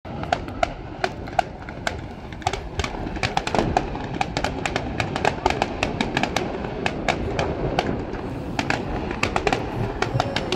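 Fireworks display: many sharp, irregular pops and crackles, often several a second, over a steady background hiss.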